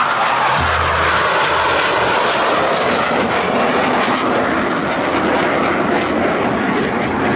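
Blue Angels F/A-18 Super Hornet jets making a loud, steady pass, their engine noise falling slightly in pitch early on as they go by.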